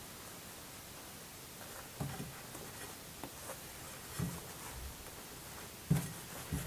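Quiet handling noises: four or five soft, dull knocks with light rustling.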